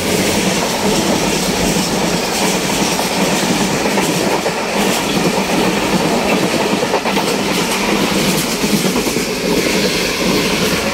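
Two passenger trains passing each other on adjacent tracks: a loud, steady rush and rumble of the other train's coaches going by close alongside, with the clatter of steel wheels on the rails. It is heard through the open door of the moving train.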